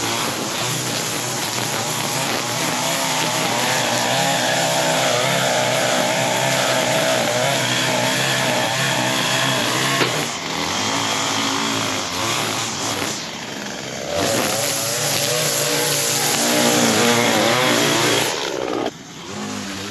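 Echo SRM-225 two-stroke string trimmer (weed eater) running at high throttle while cutting grass. The engine note shifts as it works, and it eases off briefly about halfway through, again a few seconds later, and near the end.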